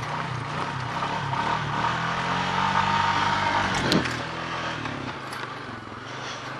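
Honda ATV engine running while riding, pulling a little harder about two seconds in and easing off near the middle. A single sharp clack comes about four seconds in.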